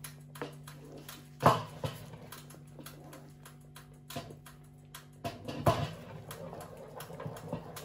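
Wooden spoon stirring thick corn porridge in a coated pot, scraping and knocking against the pot, with the loudest knock about a second and a half in. Under it a steady low hum that stops about five seconds in.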